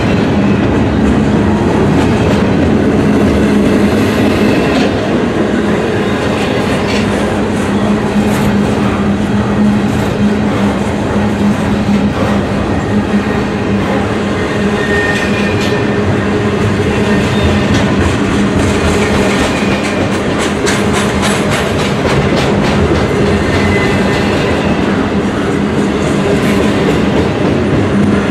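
Double-stack container train of well cars rolling past at speed: a loud, steady rumble of steel wheels on rail with a running clatter of wheels over the rail joints.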